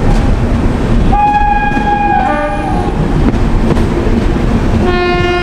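Train horn sounding twice over the steady rumble of a running train. The first blast lasts about a second and a half and changes pitch near its end. A second, lower-pitched blast comes near the end.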